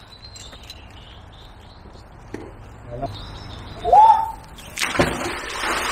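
A fishing magnet on its rope is thrown out and splashes into the canal about five seconds in, a sudden splash lasting about a second. Just before it comes a short, loud rising cry, and small birds chirp in the first seconds.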